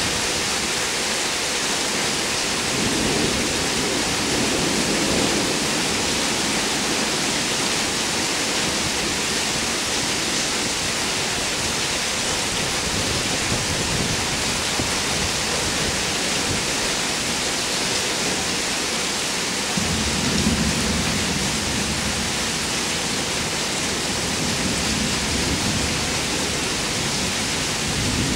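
Heavy rain falling steadily, an even hiss, with low rumbles of thunder twice: a few seconds in and again about two-thirds of the way through.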